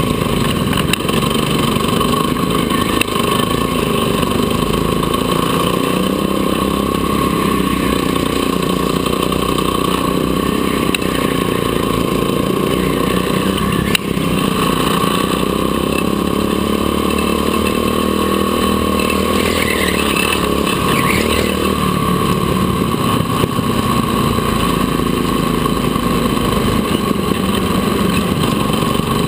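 Go-kart engine running hard, heard on board, its pitch rising and falling again and again as the kart accelerates and lifts through the corners. A single sharp click about halfway through.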